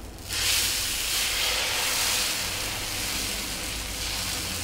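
Dosa batter sizzling on a hot griddle (tawa) as it is ladled on and spread out with the ladle. The hiss starts suddenly about a third of a second in and then holds steady.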